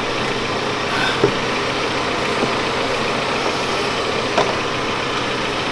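Steady engine drone of a vehicle the band is riding in, with a couple of faint brief clicks.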